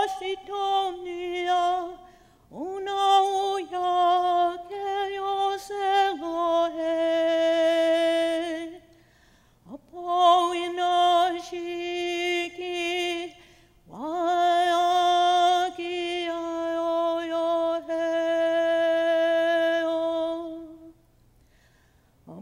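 A woman singing a Lakota Sundance morning star song solo and unaccompanied, in four long phrases of held, wavering notes with short breaks for breath between them.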